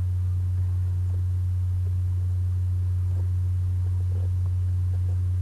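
A steady low hum with faint hiss, unchanging throughout.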